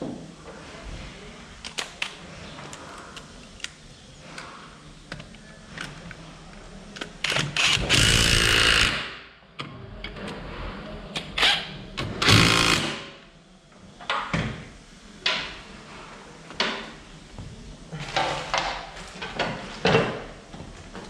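Cordless impact wrench hammering in two bursts, tightening the variator nut on a 50cc scooter's belt drive. The first burst comes about seven seconds in and lasts about two seconds; a shorter one follows a few seconds later. Short clinks of metal tools are heard in between.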